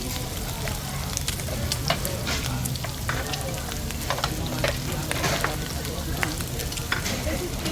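Meat sizzling on a hot tabletop grill pan, a steady hiss dotted with many sharp crackles and pops.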